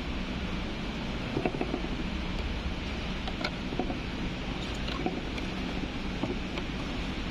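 Steady workshop background hiss and hum, with faint scattered taps and crinkles of cardboard being handled as an LED strip is pressed into a groove in a cardboard template.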